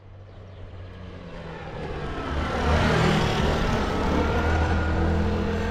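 A motor vehicle approaching, its engine growing louder over the first three seconds and then running steadily close by.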